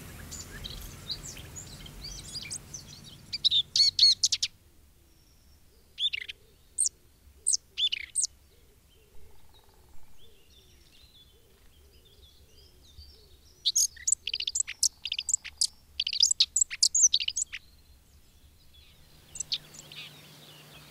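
Small songbirds chirping and twittering in quick high bursts, with pauses between them. A low steady hum sits under the first few seconds and then fades out.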